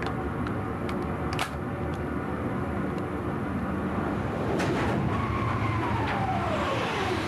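Steady machinery hum with a few sharp clicks in the first seconds; about five seconds in, a whistling tone glides steadily down in pitch over about two seconds.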